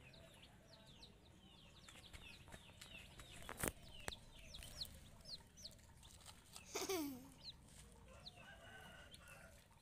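Two-week-old broiler chicks peeping: many short, high chirps scattered throughout. A sharp click comes a little over three and a half seconds in, and a louder downward-sliding call follows near seven seconds.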